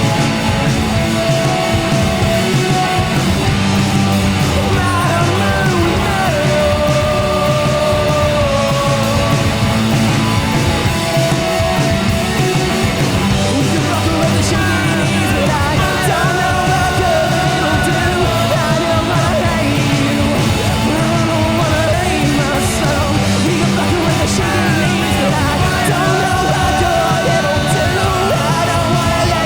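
Rock band playing live, with electric guitar and drums under a singer's half-shouted vocal line.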